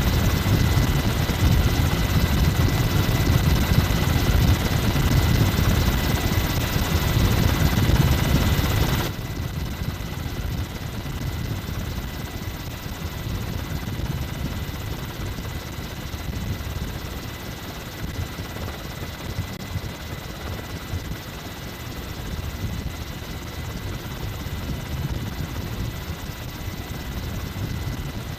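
Helicopter rotor and engine noise, a steady rumble with a pulsing low end, which drops suddenly to a quieter level about nine seconds in.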